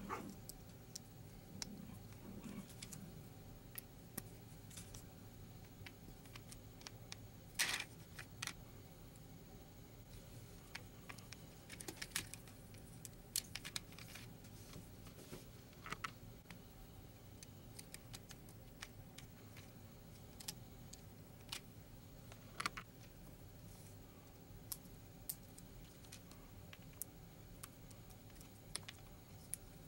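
LEGO plastic pieces being handled and pressed together: scattered sharp clicks and light rattles, the loudest about eight seconds in.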